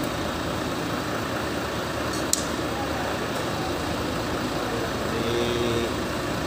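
Steady mechanical running noise, an even engine-like drone with no change in level, and one short sharp click about two seconds in.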